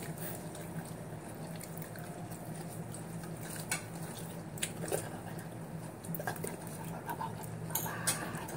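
A person eating from a plate: a few light clicks and taps against the dish over a low steady hum.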